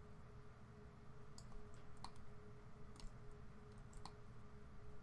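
Faint computer mouse clicks, several single sharp clicks about one a second, over a low steady electrical hum.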